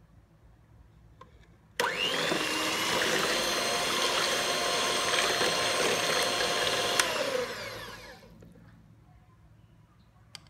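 Electric hand mixer switched on about two seconds in, its twin beaters whisking a thin milky mixture in a glass bowl with a steady motor whine for about five and a half seconds, then switched off and spinning down with falling pitch.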